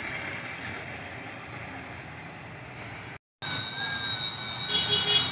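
Low steady rumble of a freight train pulling away from the crossing. After a brief silence, steady high-pitched whistling tones start, with a short ringing cluster of higher tones near the end.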